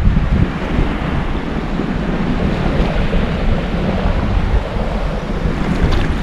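Wind blowing across the microphone over the wash of shallow sea water, a steady rushing noise.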